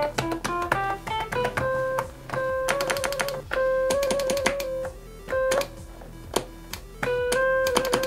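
Electric-piano-like synthesizer notes played one at a time from an arcade-button MIDI controller, some short, some held, with a couple of quick wavering passages on held notes in the middle.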